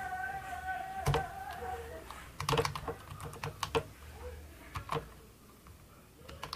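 Typing on an Inote Bluetooth 3.0 keyboard: a quick run of key clicks starting about two seconds in and stopping about five seconds in. Before the clicks, a steady tone with several pitches fades out after about two seconds.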